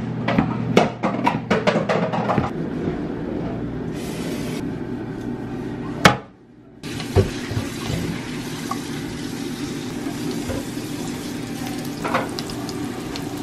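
Knife chopping through a banana onto a plastic cutting board, a rapid run of sharp taps. Then banana slices sizzling and crackling steadily in hot oil in a frying pan.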